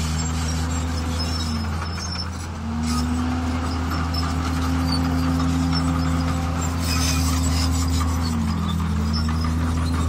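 Heavy diesel earthmoving machinery running steadily under load. Engine speed sags briefly about two seconds in and again near nine seconds, then picks back up, with a scraping, squeaky rasp over the top.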